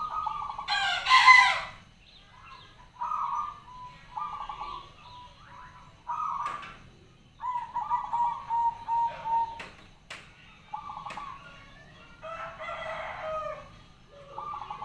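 Perkutut (zebra dove) cooing in a series of short phrases of quick repeated notes, with gaps between phrases. A louder, harsher call comes about a second in.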